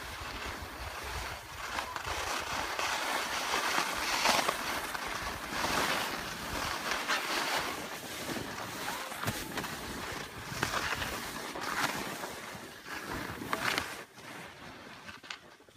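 Skis sliding and scraping over packed snow, with wind rushing on the microphone; the hiss swells several times as the skis turn and drops off near the end.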